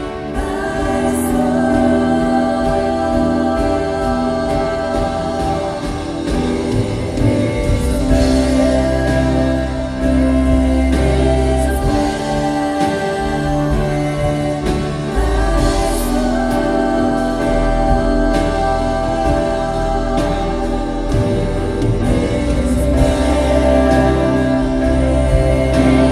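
A live worship band plays a slow, sustained passage with voices singing over held chords from keys and guitars, a bass line, and drum cymbal crashes every few seconds, heard through the room's reverberation.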